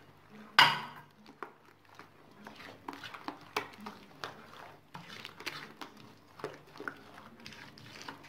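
A hand squelching and sloshing through runny cookie batter in a glazed clay bowl, in repeated short irregular strokes. A single loud sharp sound stands out about half a second in.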